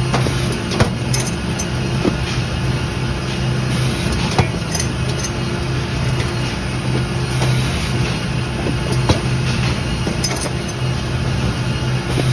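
Automated carton stacker running: a steady low machine hum with a few sharp clacks at irregular moments as it cycles stacks of cartons.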